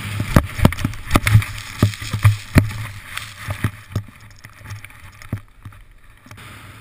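Mounted action camera knocking and rattling as it rides fast over bumpy snow, with a steady rush of wind and snow hiss. The knocks come several a second for about four seconds, then ease off to a quieter hiss.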